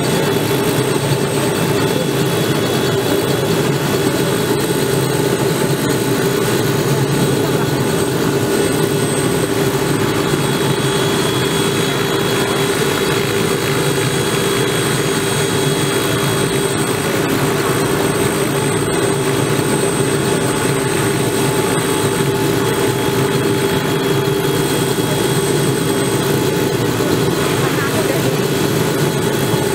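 Robinson R66's Rolls-Royce RR300 turboshaft engine running steadily with the helicopter on the ground, a constant turbine whine over the rotor's steady hum.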